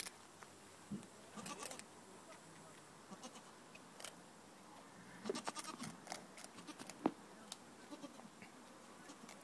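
Goats bleating now and then over scattered clicks and rustles, with one sharp click a little after seven seconds in the loudest sound.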